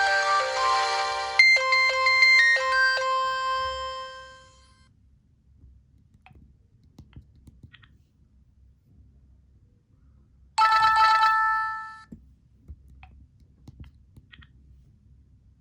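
Motorola RAZR V8 ringtones playing: a many-note electronic ringtone ends about a second in and gives way to a short chime melody of a few notes that fades out within a few seconds. After some faint clicks, a brief bright tone of about a second and a half sounds near the end.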